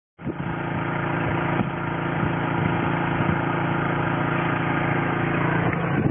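Small generator running steadily at a constant speed, an even engine drone with a fixed pitch, powering an ice maker.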